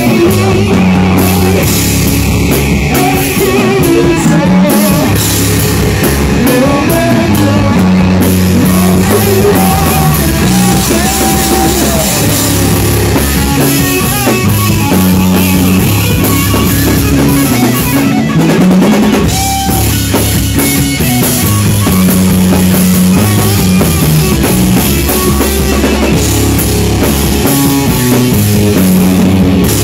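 Stoner rock band playing: heavily distorted guitar and bass riffing over a drum kit, loud and continuous.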